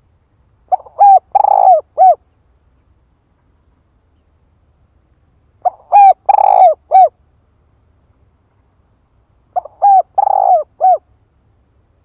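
Spotted dove cooing in three phrases about four seconds apart, each a short lead note followed by a run of coos with a longer rolling coo near the end. Close and loud.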